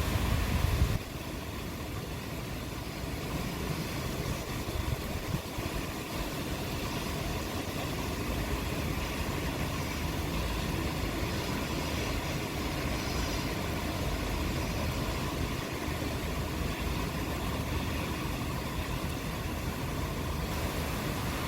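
Steady rain, a constant even hiss with a low rumble underneath. A louder low rumble in the first second cuts off abruptly.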